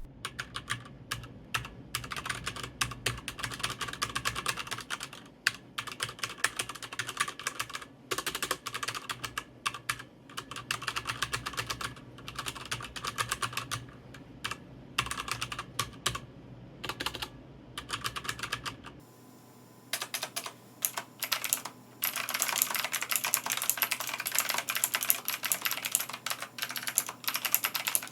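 Typing on an HP Omen Encoder mechanical keyboard, irregular key clicks with short pauses. After a cut about two-thirds of the way through, typing on a Royal Kludge typewriter-style mechanical keyboard, with denser, brighter clicks.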